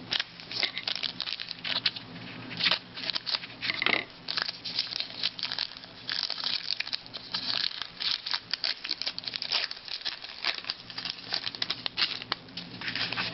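Hockey card pack wrappers crinkling and tearing as packs are opened, with irregular rustles and clicks of the cards being handled.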